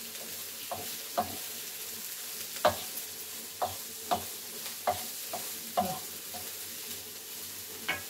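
Chopped green peppers sizzling in oil in a non-stick frying pan, stirred with a wooden spoon that knocks against the pan about ten times at uneven intervals.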